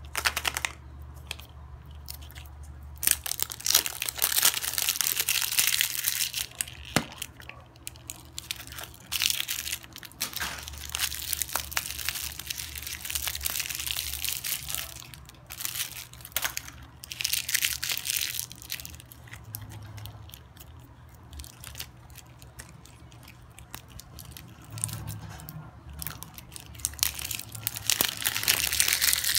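Cellophane candy wrappers and plastic surprise eggs handled in a box, with crinkling plastic wrappers in stretches of a few seconds and scattered sharp clicks of hard plastic.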